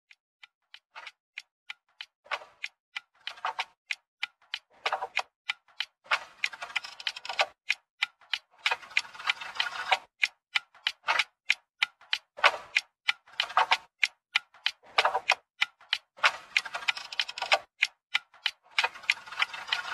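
Steady clock-like ticking, about three ticks a second, with swells of hiss-like noise coming and going every second or two, opening a music track.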